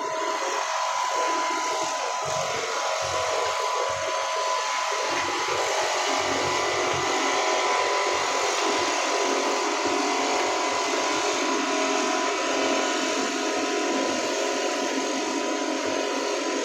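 A power tool's motor running steadily, with a steady whine over a hiss.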